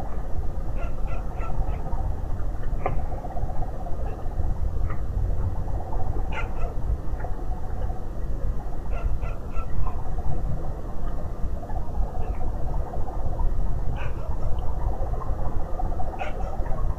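Dog barking on and off in short scattered barks, heard through a CCTV camera's microphone over its steady low hiss.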